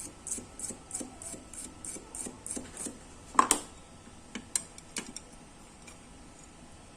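Toothbrush scrubbing a phone's circuit board around a freshly soldered charging connector, about three quick scratchy strokes a second, stopping about three seconds in. Then a single loud knock and a few light clicks.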